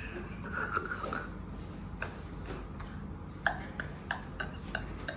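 A soft breath, then a series of short, faint clicks that come about three a second toward the end.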